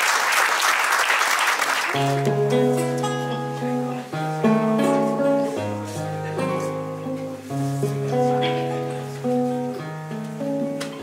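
Audience applause dying away, then, about two seconds in, an acoustic guitar begins a song's introduction: picked chords over a moving bass line.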